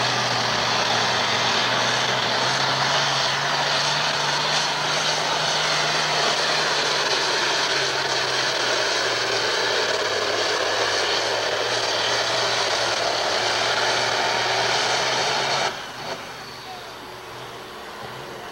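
Ford super stock pulling tractor's engine running flat out under heavy load as it drags a weight-transfer sled. It holds a loud, steady note, then drops abruptly to a much quieter running about 16 seconds in as the pull ends. The announcer hears it as not sounding 100% okay.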